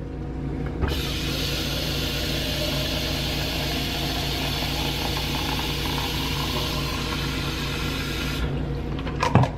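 Kitchen faucet running water into a plastic tumbler. The stream starts about a second in and is shut off near the end, followed by a few sharp clicks.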